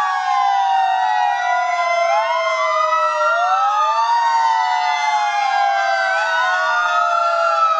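Several fire engines' sirens wailing at once, out of step with one another, each sweeping up and slowly back down every few seconds in a continuous, loud, overlapping chorus.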